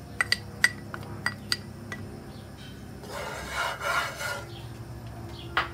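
A few sharp taps in the first second and a half, then a wooden spatula scraping across the bottom of a nonstick skillet, spreading a thin layer of sesame oil, for about a second and a half.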